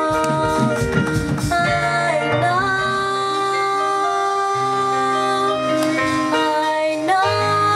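Praise and worship music: voices singing long held notes over instruments, with drum strokes in the first second or so.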